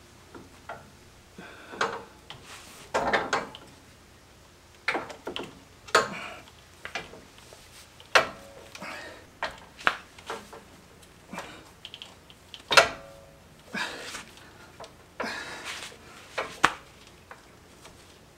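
Irregular metal clanks and clinks as a compressed coil spring and its spring compressor are worked into a Jeep JL's front axle spring seat, a dozen or so knocks, some ringing briefly; the loudest comes about 13 seconds in.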